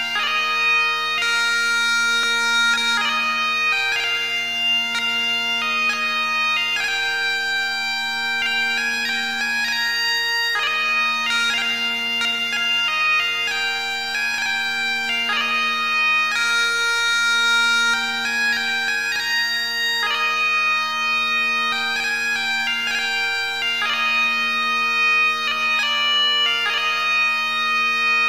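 Bagpipes playing a tune: a chanter melody moves note by note high above steady low drones.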